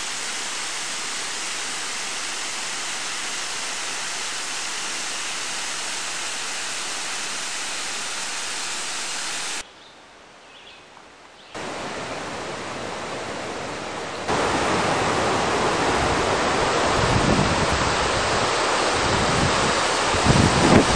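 Steady rushing noise, broken by a brief quiet stretch about ten seconds in, then louder wind buffeting the microphone in uneven gusts from about fourteen seconds on.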